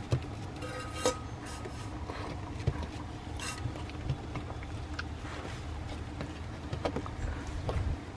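Scattered light knocks, clicks and scratches of 18-day-old Shiba puppies' paws and claws on the wooden floorboards of a whelping box as they wobble and crawl over each other, over a steady low hum.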